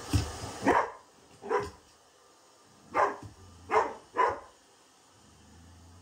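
A Xoloitzcuintli (Mexican hairless dog) barking at a hair dryer: six sharp barks in irregular bursts over the first four seconds or so, then quiet.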